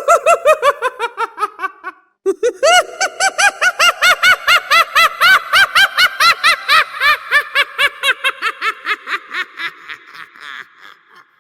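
Clown laugh: a high-pitched, rapid 'hee-hee-hee' cackle at about five or six laughs a second. A first short run falls in pitch and breaks off about two seconds in. After a brief pause, a longer run follows and fades away near the end.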